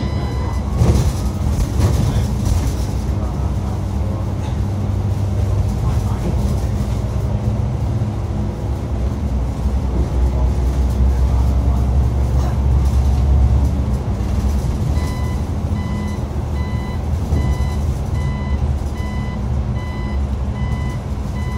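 Xiamen King Long XML6125 hybrid city bus running with a steady low rumble. About two-thirds of the way through, a warning beeper starts sounding in a regular run of short high beeps.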